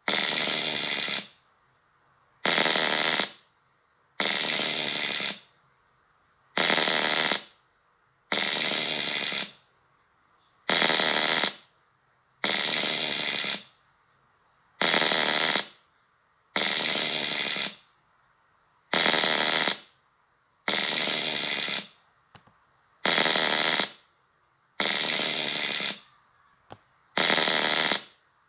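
Pulsed white-noise hiss used as a tinnitus masker: bursts about a second long, each fading out at its end, repeating roughly every two seconds with near silence between.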